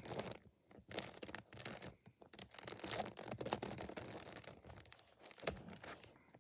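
A 3x3 Rubik's cube being turned by hand, its plastic layers clicking and clacking in quick repeated twists with brief pauses between turns.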